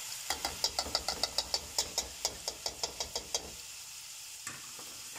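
French fries deep-frying in oil with a steady sizzle. For the first three seconds or so, a slotted metal spatula clicks rapidly against the aluminium pot, about six sharp clicks a second, then stops.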